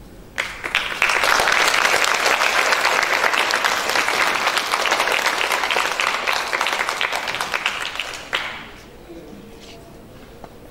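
Audience applauding: dense clapping that starts about half a second in, holds steady, and dies away after about eight seconds.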